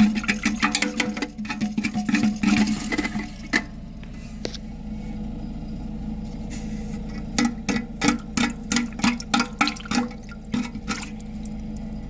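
Toilet flushing and its tank refilling with steady running water, with many short clicks over it. A toilet that leaks at its tank bolts.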